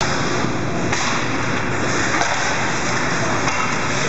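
Ice hockey game ambience in an indoor rink: a steady noisy din of play on the ice with a few faint knocks.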